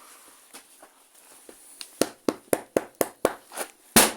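Rapid repeated knocks of blows on an LCD TV screen, someone trying to break it. They start about two seconds in at roughly four a second and turn louder and faster near the end.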